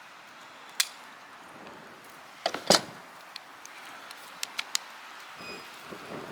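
Sharp metallic clicks and knocks of parts being handled and pried at while pulling pieces out of a dismantled assembly. The loudest cluster comes a little over two seconds in, with a few lighter ticks a couple of seconds later.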